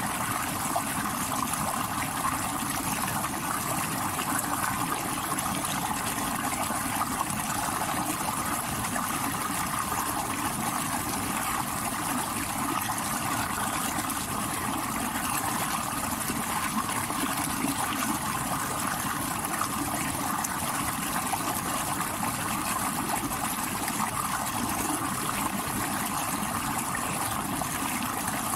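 Stream water rushing over rocks in a steady, unbroken flow.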